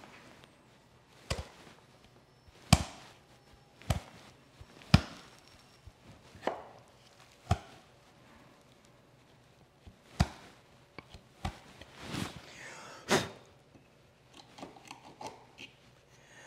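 A hand chisel chopping down into the corner of a rabbet in a wooden board: about a dozen short, sharp cuts, irregularly spaced roughly a second apart, the loudest in the first five seconds.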